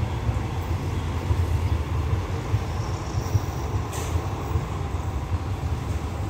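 Train pulling away along the track, a steady low rumble, with a brief high hiss about four seconds in.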